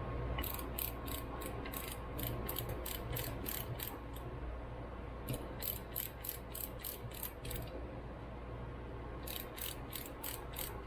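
Ratchet clicking in three runs of about four clicks a second, with short pauses between the runs.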